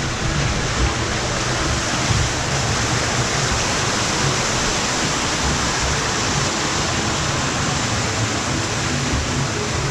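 Steady rushing and splashing of water from an artificial rock waterfall spilling into a log flume's water channel, heard from a boat drifting past in the trough.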